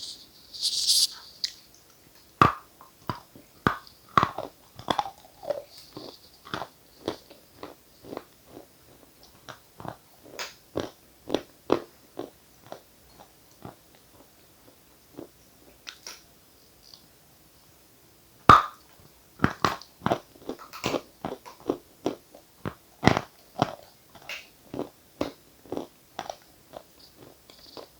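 Dried edible chalk and clay being bitten and chewed close to the microphone: a run of sharp, crumbly crunches, a sparser stretch around the middle, then one loud bite followed by quick, dense crunching.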